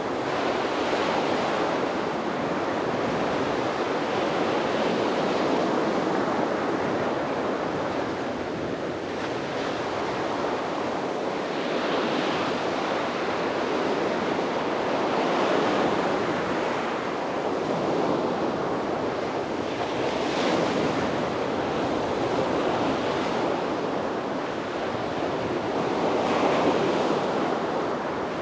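Sea waves breaking and washing onto a beach, swelling and easing every few seconds, with some wind on the microphone.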